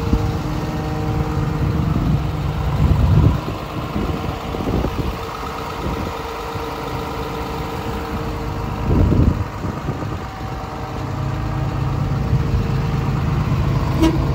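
Komatsu PC210LC-10 excavator's diesel engine running steadily. A few sharp clicks come near the end as a hand works the machine's side cover.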